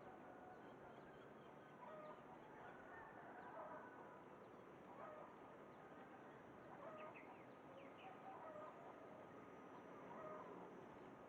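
Faint zebra dove (merbok) cooing: short soft notes in little phrases, repeated every second or two.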